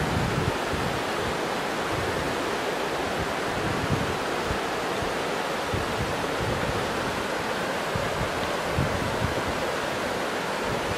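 River water rushing steadily over rocks in shallow rapids, an even hiss with no let-up. Irregular low rumbles of wind buffet the microphone underneath.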